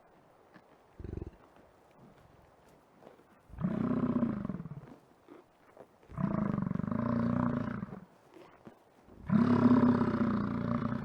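American bison bellowing: three long, low calls about a second apart, each lasting roughly one and a half to two seconds. A brief low sound comes about a second in.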